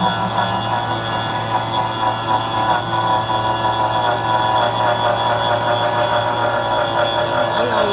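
CNC drilling machine running steadily: a constant low hum with a high, even whine on top.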